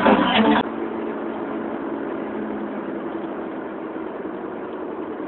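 Loud music cut off abruptly under a second in, followed by the steady hum of a moving vehicle's engine and road noise.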